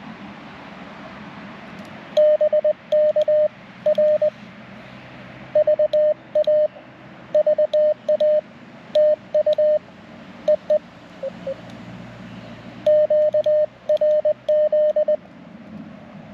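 Morse code (CW) from an amateur radio transceiver: a single steady beep keyed on and off in dots and dashes, in three runs of characters, over a background of receiver hiss. Fainter Morse signals from other stations sound lower in pitch underneath.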